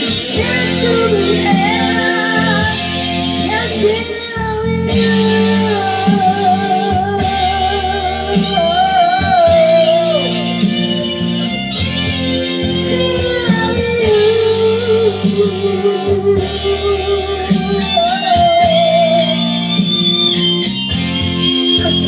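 A guitar-backed pop ballad playing, with a melody line that wavers with vibrato over a steady accompaniment.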